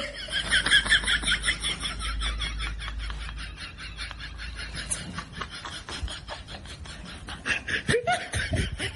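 A person laughing quietly in quick repeated breaths, strongest in the first few seconds, fading in the middle and picking up again near the end.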